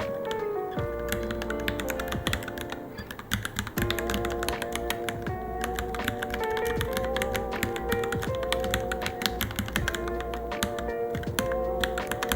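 Rapid, irregular keystrokes on a Varmilo Minilo mechanical keyboard during touch-typing, over background music with sustained melodic notes.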